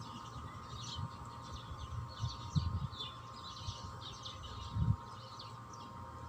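Small birds chirping with many short high chirps in quick succession, over a faint steady background hum. Two brief low thumps come about a third and three quarters of the way in.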